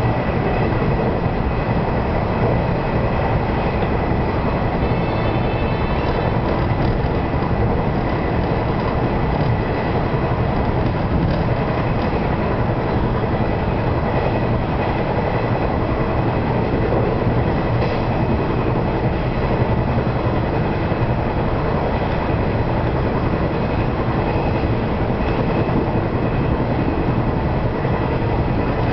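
JNR 475-series electric multiple unit running steadily at speed, heard from inside the front cab: an even rumble of motors and wheels on the rails.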